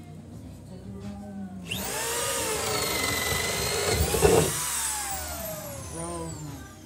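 Corded power drill with a large auger bit starting up about two seconds in and boring into a wooden wall stud, its motor pitch sagging and recovering under load. It gives heavy knocks near the middle, then the motor winds down with a falling whine.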